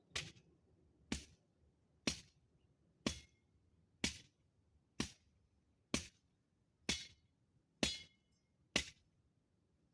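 A hand tool striking ten times at an even pace, about once a second, each a sharp hit with a brief ring, as in steady yard work.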